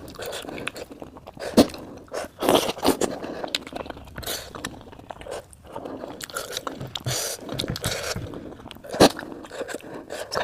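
Close-miked eating of jhol momos, dumplings in spicy soup: irregular chewing and biting sounds. A sharp click comes about a second and a half in, and another near the end.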